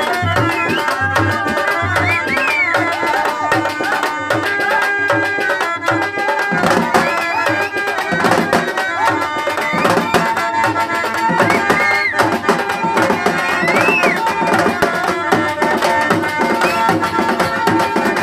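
Indian folk music: hand drums keep a steady beat under a melody line with sliding notes.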